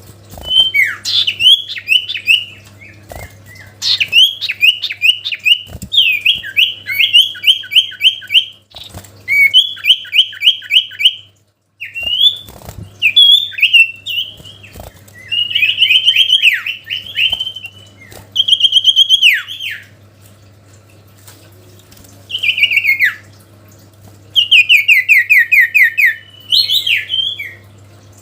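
Common iora (cipoh, 'sirtu' type) singing a rival-provoking song: phrase after phrase of fast repeated chirping notes, each phrase a second or two long with short pauses between. A faint low hum runs underneath.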